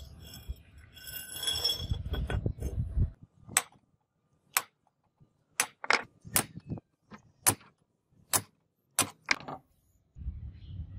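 A steel center punch is struck about ten times in irregular, sharp metallic taps, marking a ring of dimples in the hardened bearing-steel blank to guide drilling. Before the taps there is low rumbling handling noise, and a low rumble starts again near the end.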